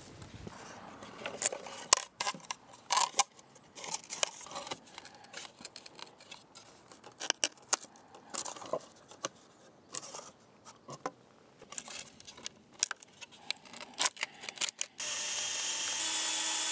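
Wooden boards clacking and knocking against the stone wall and fence as they are handled and set in place, then a cordless drill running steadily for about a second and a half near the end, driven into the wood.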